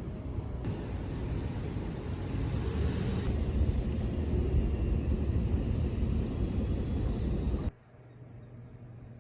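Low rumble of a vehicle, growing louder about two and a half seconds in, then cut off suddenly near the end, leaving a quieter steady hum.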